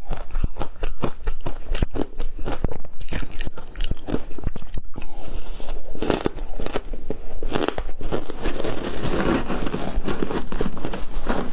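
Ice being crunched and chewed: a dense run of sharp crackles, turning rougher and more continuous after about six seconds.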